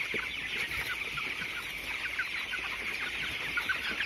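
Steady, dense chatter of a large flock of 21-day-old broiler chickens in their house: many overlapping peeps and clucks. The flock has chronic respiratory disease (CRD, 'cekrek').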